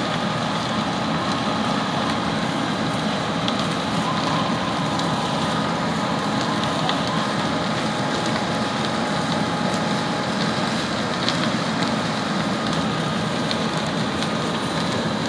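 Steady rushing noise of a large building fire and the fire engines working it, with scattered sharp crackles and pops.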